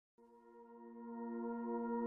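Ambient music: a steady drone of several held notes with a ringing, bowl-like tone, starting just after the opening and swelling in loudness.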